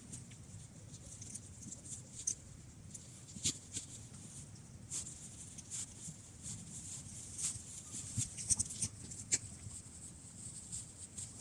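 Irregular light crackles and rustles in the dry needles and twigs of the forest floor, over a faint low rumble.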